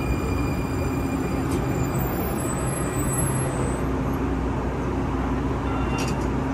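Valley Metro light rail train standing at a platform, humming steadily with a low drone and a few constant high whining tones.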